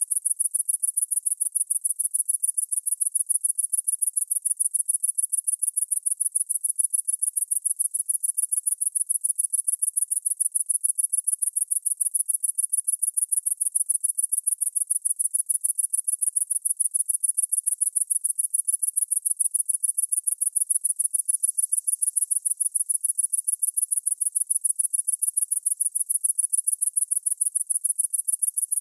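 A single cricket chirping close by: a steady, even train of rapid, high-pitched pulses that never breaks.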